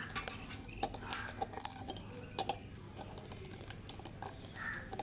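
Hand squeezing and mashing roasted brinjal and banana in a steel pot: soft wet squishes with irregular small clicks of fingers and food against the metal.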